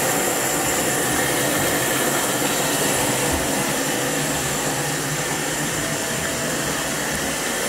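Water pouring from a bath tap into a clawfoot bathtub that is filling, a steady rushing noise.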